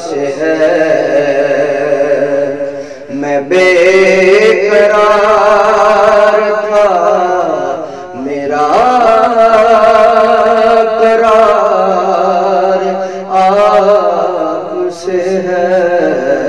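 A man reciting a naat, an Urdu devotional song in praise of the Prophet, in long held, ornamented sung lines over a steady low drone. He pauses for breath about 3 and 8 seconds in.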